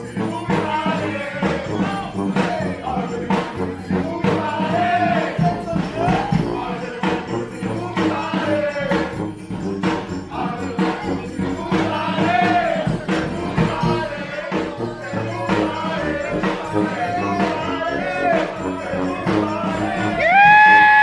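Live street brass band playing a tune of short horn phrases over a steady drum beat, with a loud long held horn note near the end.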